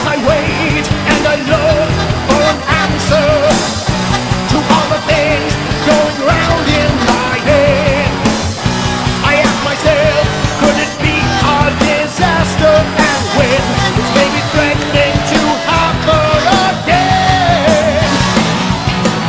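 Rock music with a steady drum beat and a wavering lead melody, an instrumental stretch between sung verses.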